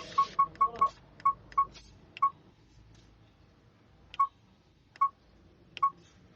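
Electronic button beeps from a handheld diagnostic scan tool being keyed through its menus: about seven short, same-pitched beeps in quick succession in the first two seconds, then three more spaced about a second apart.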